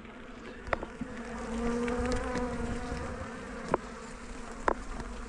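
Honeybees buzzing around an opened hive, a steady hum that swells louder for a second or two about a second and a half in, as bees pass close. Three short sharp clicks cut through the buzz.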